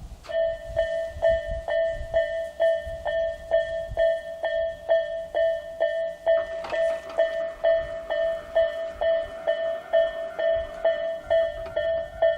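Japanese railway level-crossing alarm of the Isesaki type starting up just after the beginning and ringing an even, repeated ding at about two and a half strikes a second, a subdued Isesaki tone. A faint extra sound joins about six seconds in.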